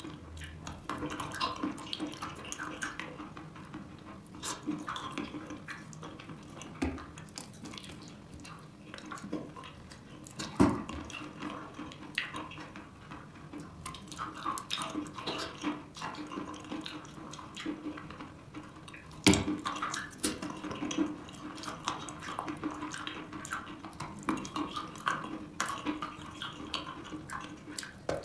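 Wet chalk being bitten and chewed close to the microphone: soft wet crunching and crackling with many small mouth clicks. Two much louder sharp crunches come about a third of the way in and about two-thirds of the way in.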